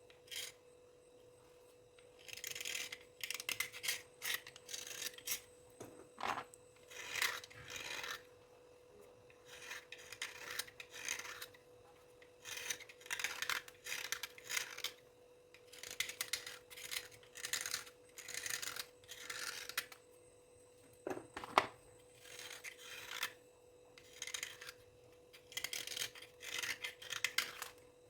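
Repeated short, dry scraping strokes in quick runs separated by brief pauses, with a faint steady hum underneath and a couple of sharper clicks.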